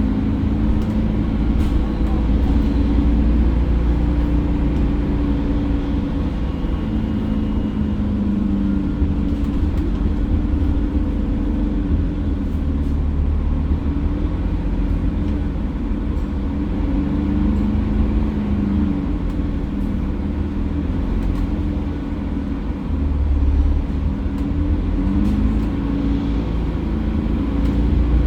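Mercedes-Benz OC500LE bus's diesel engine running under way with a steady low road rumble, its note rising and falling as the bus speeds up and slows.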